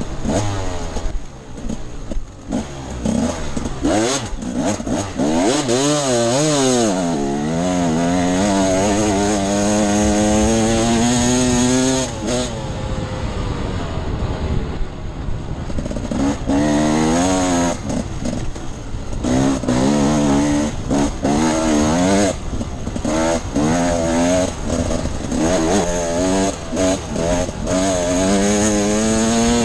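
Off-road dirt bike engine under riding load, revving up and dropping back again and again as the throttle opens and closes, with a steadier, lower stretch about halfway through.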